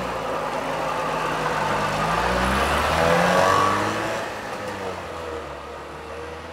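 Trabant 601S's two-stroke two-cylinder engine running, then revving up as the car pulls away, rising in pitch and growing louder. From about four seconds in it fades as the car drives off.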